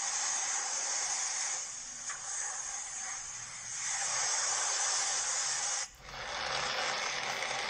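Sea waves: a continuous wash of surf that swells and eases, with a brief break about six seconds in.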